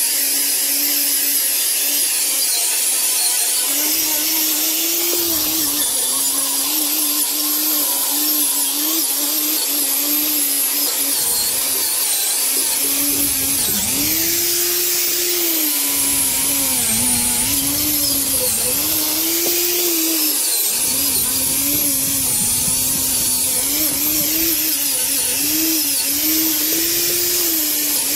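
Electric angle grinder with an abrasive attachment running against a rusty iron trolley frame, stripping off rust and muck. Its steady whine sags in pitch and recovers over and over as it is pressed into the metal and eased off, over a harsh hiss.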